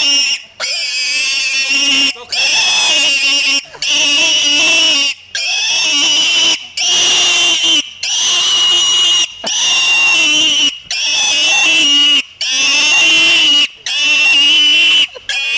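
Young white pig squealing loudly and without let-up while held in a person's arms. About ten long, shrill squeals, each broken off by a short breath.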